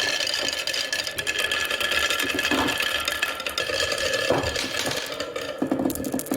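Glass marbles rattling and clinking in the spinning drum of a toy mini washing machine, dense continuous clicking over the whir of its small motor.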